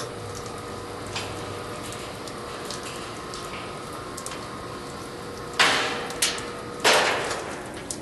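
Space shuttle thermal tile under concentrated sunlight in a solar furnace, giving faint, scattered crackling ticks over a steady hum. Near the end come two louder rushing bursts of noise, each fading away, with a smaller one between them.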